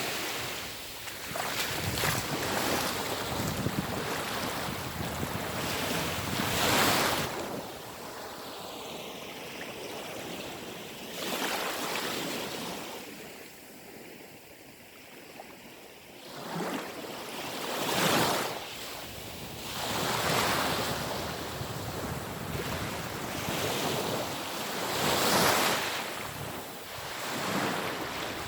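Sea waves breaking and washing onto the shore, surging every few seconds with a quieter lull about halfway through. Wind buffets the microphone.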